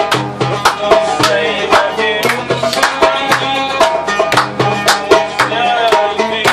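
Live Middle Eastern music on oud and hand frame drum: a plucked oud melody over a steady, repeating beat of low drum strokes and sharp rim strikes.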